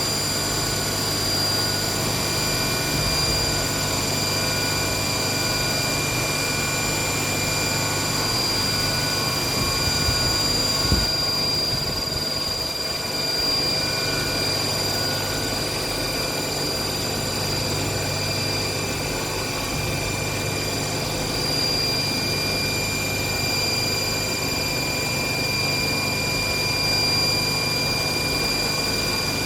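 CNC vertical machining centre running: a steady high whine made of several held tones over a low machine hum, with one sharp click about eleven seconds in.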